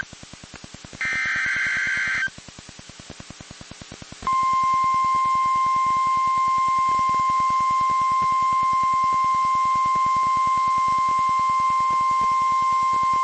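NOAA Weather Radio Emergency Alert System signal: a short burst of the SAME header's warbling digital data tones about a second in. After a pause of about two seconds comes the 1050 Hz warning alarm tone, one steady high beep held for about nine seconds, which marks a warning-level alert. A faint rapid pulsing buzz from the receiver runs underneath.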